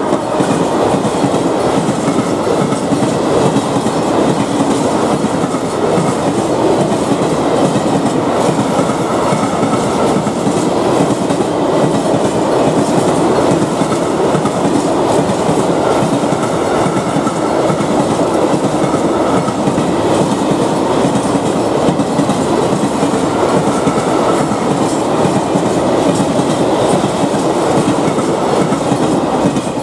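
Freight train's open wagons rolling past at close range: a steady loud rumble of wheels on rail with clickety-clack over the rail joints.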